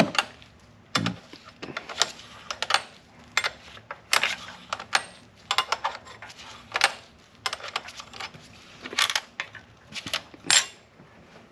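Metal hand tools clicking and clinking against engine parts while Torx fasteners are worked loose, in irregular sharp knocks about one or two a second.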